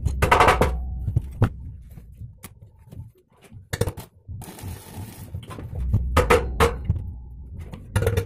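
Metal parts knocking and scraping as they are handled, over a steady low hum.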